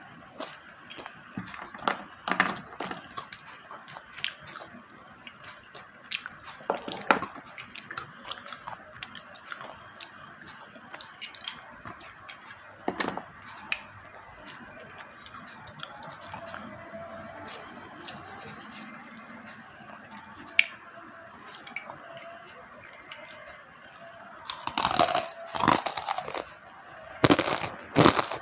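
Slate pencils being bitten and chewed: irregular sharp crunches and cracks, growing denser and louder near the end.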